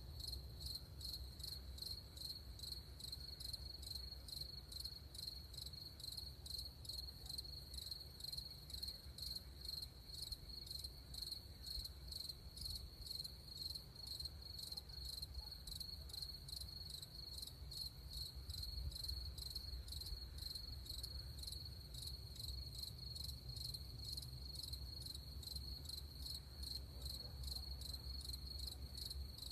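Crickets chirping, a steady high trill pulsing at an even rate, over a faint low rumble.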